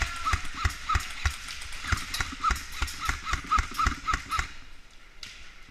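Airsoft guns firing: a run of sharp shots about three a second, each with a short metallic ping, that stops about four and a half seconds in.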